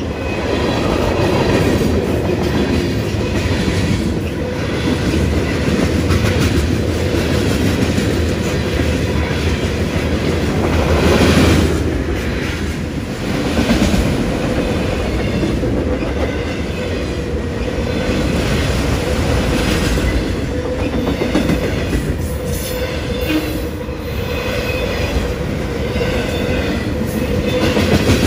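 Cars of a long CSX mixed-freight (manifest) train rolling past at speed: a steady rumble with a fast, uneven run of wheel clicks over the rail joints and a faint steady tone underneath.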